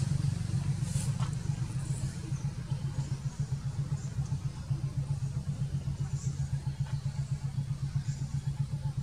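A small engine idling nearby, a steady low drone with a fast, even throb.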